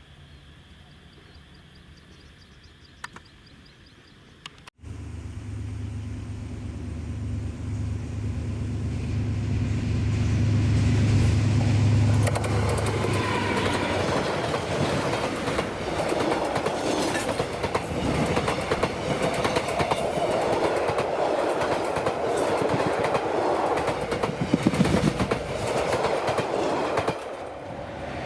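Passenger train going by. After a few quiet seconds, a diesel locomotive's steady low engine drone starts abruptly about five seconds in, then the coaches pass with a loud rushing noise and irregular clicking of wheels over the rail joints.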